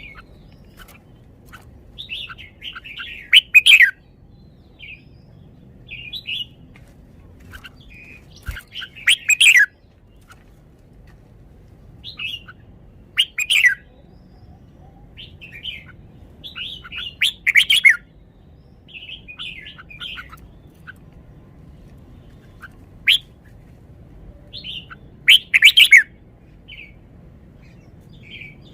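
Red-whiskered bulbul singing: loud, short warbled phrases every few seconds, with softer twittering notes between them.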